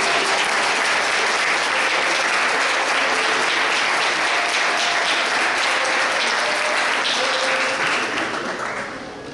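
Audience applauding, a dense steady clatter of many hands that dies down near the end.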